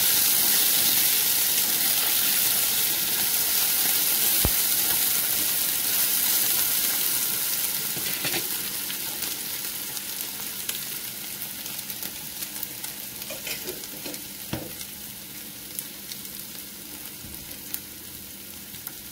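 Diced potatoes sizzling in a frying pan, stirred with a utensil near the start, with a few light clicks; the sizzle grows quieter over the second half.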